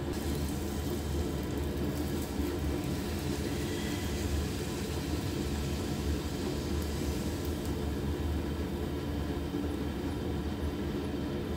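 Puri deep-frying in hot oil in a small pan, sizzling with faint crackles, over a steady low rumble.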